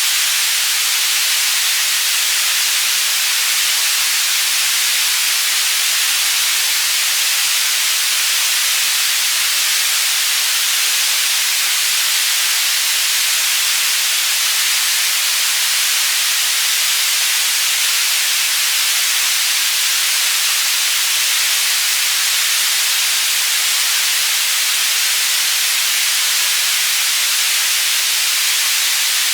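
Steady synthetic white noise: an even hiss, strongest in the upper range, panned from side to side as a tinnitus-masking sound.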